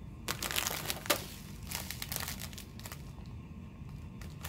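Plastic snack packaging crinkling as it is handled, loudest in the first second and a half with one sharp click about a second in, then fainter rustling.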